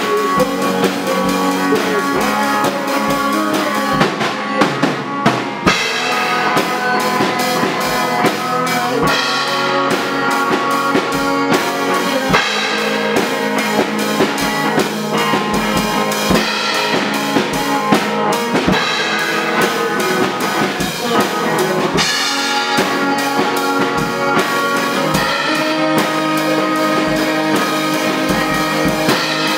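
Amateur rock band playing live: a drum kit keeps a steady beat on bass drum, snare and cymbals under electronic keyboard and a singer on a handheld microphone.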